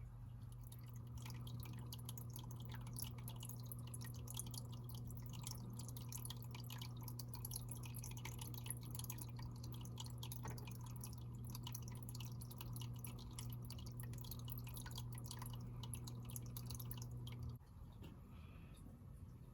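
Aquarium air pump humming steadily while bubbles from the air stone pop and drip at the water surface as many fine ticks. The pump hum cuts off suddenly a couple of seconds before the end, and the small drips carry on more sparsely.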